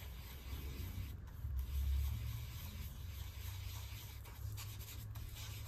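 Paintbrush stirring and scrubbing thick heavy-body acrylic paint on a palette: a soft, continuous rubbing with a few light clicks, over a low steady hum.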